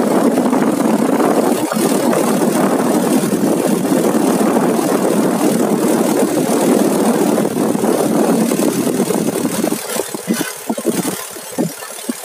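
A Suzuki motorcycle riding along the road, its engine running under wind rushing over the microphone. The noise eases somewhat near the end.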